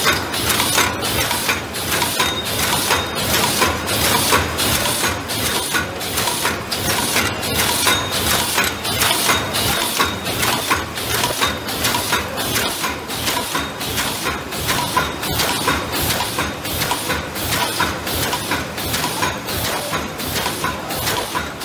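Paper soup-bowl forming machine running in production, a continuous mechanical clatter of clanks and clicks. The clatter repeats in an even rhythm of about two beats a second.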